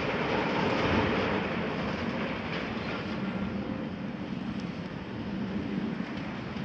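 Volvo EC300 tracked excavator's diesel engine working under load as the machine slews and swings its boom out. It is louder for the first second and a half, then settles to a steady drone.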